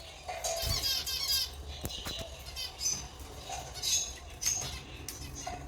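Lovebirds chirping in short, high calls, with a rapid chattering trill about a second in and a few sharp clicks among the calls.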